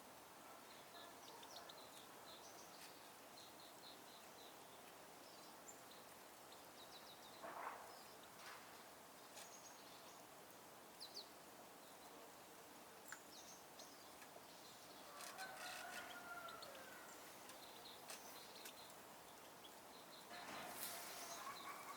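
Faint, scattered chirps and twitters of small songbirds, with a distant rooster crowing about fifteen seconds in and again near the end.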